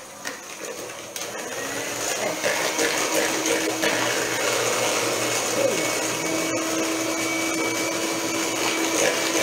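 Electric hand mixer running, its beaters whisking eggs and brown sugar in a plastic bowl. A steady motor whir that grows louder over the first two seconds, then holds even.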